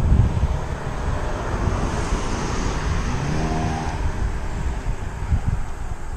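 A car, a white SUV, driving past on a narrow paved road, its engine and tyre note standing out about three seconds in. Wind rumbles on the microphone of the moving bicycle throughout.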